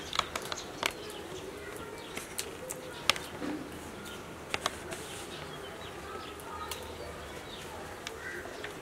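Scattered light clicks and rustling as small plastic toner-cartridge gears are handled and wiped with a tissue, with birds calling faintly in the background near the end.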